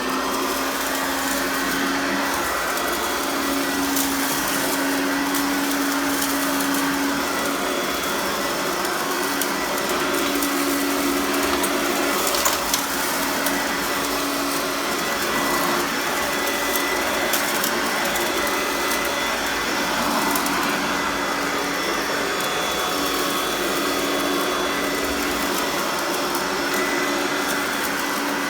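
1984 Hoover Sovereign U2314 upright vacuum cleaner with a 4-amp motor, running steadily while it tests on a floor mat. Its even rushing sound carries a low hum that comes and goes.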